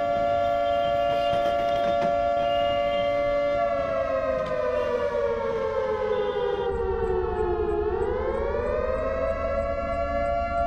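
Outdoor civil-defence warning siren sounding a steady two-note wail. Its pitch sags from about four seconds in, bottoms out near eight seconds, then climbs back to the original pitch.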